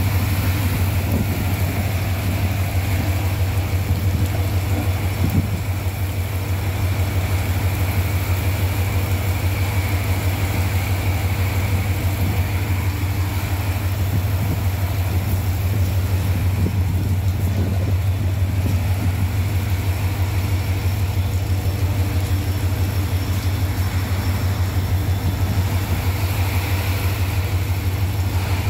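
An engine idling steadily with a deep, even throb, over the steady hiss of heavy rain.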